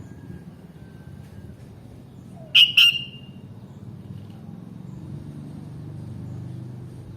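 Sooty-headed bulbul giving two short, loud, sharp call notes in quick succession about two and a half seconds in, over a steady low background rumble.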